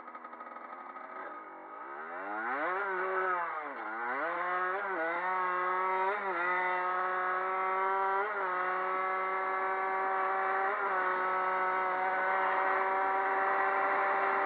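Kawasaki KX dirt bike engine, heard close from on board. It runs low at first, revs up and down about two seconds in, then holds a steady high pitch under way with a few brief throttle blips.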